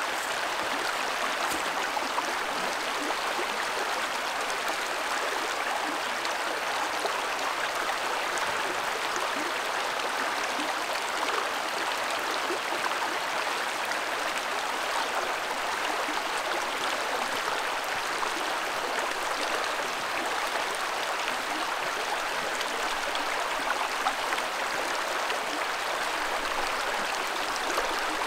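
Creek water running over rocks, a steady even rush with no change throughout.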